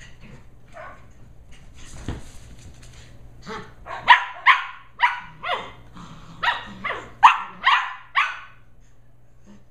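Shetland sheepdog puppy barking in play: a quick run of about ten short barks, each dropping in pitch, starting about three and a half seconds in.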